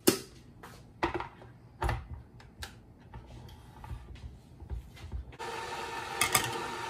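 Knocks and clatter of an electric kettle being handled on a countertop. About five seconds in, a steady hiss with a faint hum starts as the kettle is switched on to boil water. Near the end a few sharp clicks come as a plastic pour-over dripper is set on the mug.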